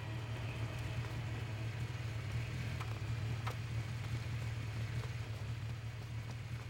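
Motorcycle engine idling with a steady low rumble, with a few faint clicks about three seconds in.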